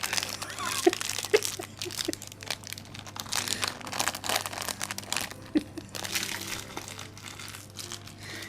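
Wrapping paper crinkling and rustling in irregular bursts as it is handled and crumpled.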